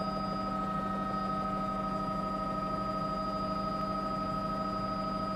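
News helicopter's cabin noise heard through the crew intercom: a steady, unchanging drone, a low hum with several steady whining tones above it.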